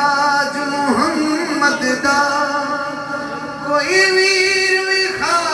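A man's voice singing a Punjabi devotional manqabat to Ali, holding long notes at the start and again about four seconds in.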